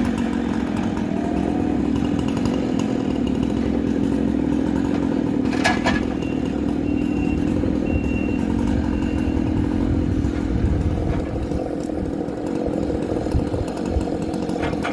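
Chainsaw engine running steadily through a logging cut, with one brief sharp click a little before the middle.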